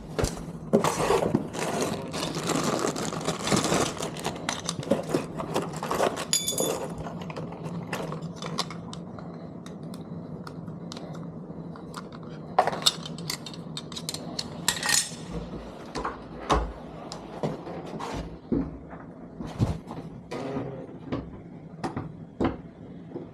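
Metal parts of a lever door lockset being handled and fitted: repeated clinks, clicks and knocks, busiest in the first several seconds, then sparser taps.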